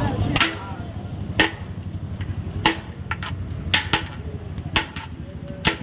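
Metal serving spoon knocking against the rim of a large metal biryani pot as rice is scooped and served: about six sharp clinks roughly a second apart, over a steady low background hum.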